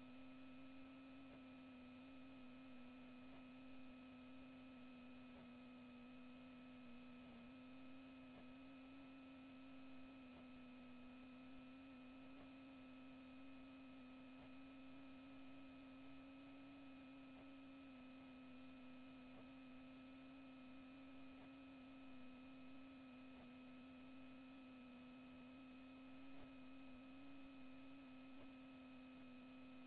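Near silence apart from a faint, steady electrical hum: one unchanging low tone with fainter higher overtones.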